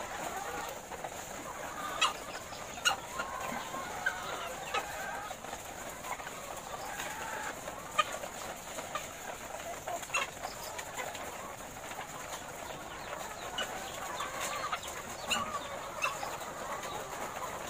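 A flock of caged layer hens clucking steadily, many birds at once, with a few sharp clicks or knocks now and then.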